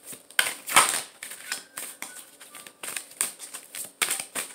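An oracle card deck being shuffled from hand to hand: an irregular run of crisp card flicks and taps, a few louder ones standing out.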